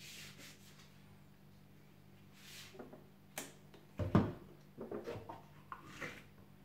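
Plastic yogurt tub being opened by hand: rustling and a sharp click as the lid comes off, a heavy thump about four seconds in, then a run of small crackles as the foil seal is peeled back.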